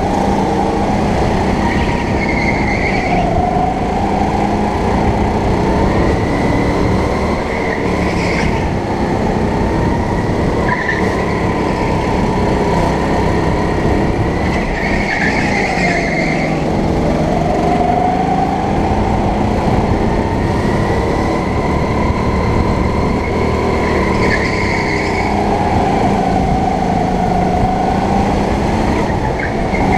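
Go-kart engine running hard, heard from on board, its pitch rising and falling every few seconds as it accelerates down the straights and lifts for the corners. Short bursts of tyre squeal recur in the corners.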